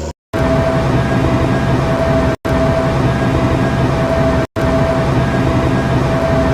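John Deere 7820 tractor running steadily, with a steady high whine over the engine note. The sound cuts out briefly twice and resumes the same way each time, like a repeated sound loop.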